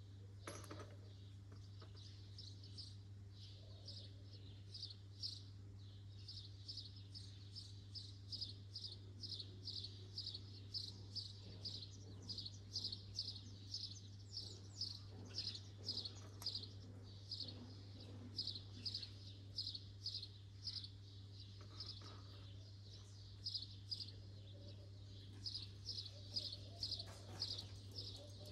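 A small bird chirping over and over in short, high chirps, about two to three a second, with a steady low hum underneath.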